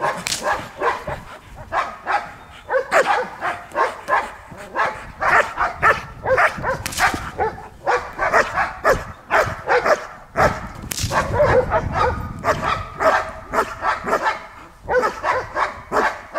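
Black German shepherd barking in protection work, a rapid, unbroken string of barks directed at the decoy.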